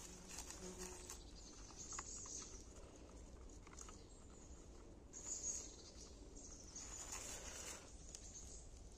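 A schipperke mouthing and tugging at a cardboard tube hung on a string, giving faint scratchy scraping and rustling in short bursts, the loudest about five seconds in.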